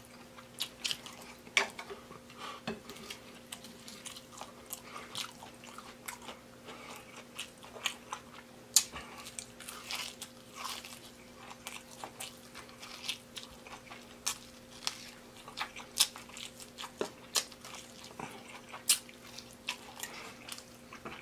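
A person biting and chewing deep-fried baby back ribs: irregular crisp crunches of the fried coating and chewing sounds, with a faint steady hum underneath.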